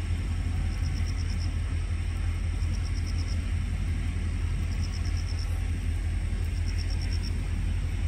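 A low, steady outdoor rumble with a short, high-pitched trill of about six quick pulses repeating four times, roughly every two seconds.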